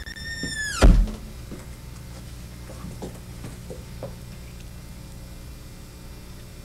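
A house door swinging shut: a short high hinge squeak that slides down into a loud thud as the door closes, about a second in, then a few faint taps.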